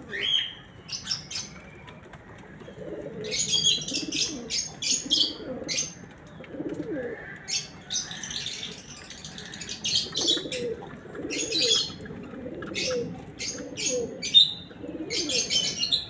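Domestic pigeons cooing over and over in low warbling phrases. Many sharp clicks and rustles sound over the cooing, with a few short high chirps.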